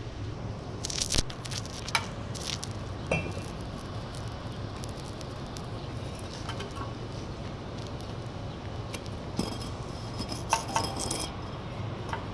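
Mason's steel trowel clinking and tapping against clay bricks and mortar during bricklaying: scattered sharp metallic clinks, some briefly ringing, with a cluster of them near the end, over a steady low hum.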